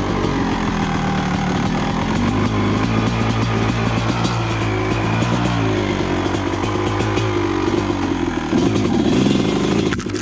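Honda CR250R two-stroke dirt bike engine running under throttle, its pitch rising and falling as the throttle is worked. It revs up again near the end.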